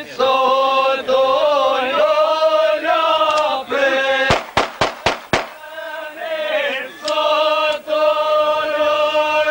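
Voices singing together in long, held notes, chant-like. A run of about five sharp cracks interrupts the singing about four to five seconds in.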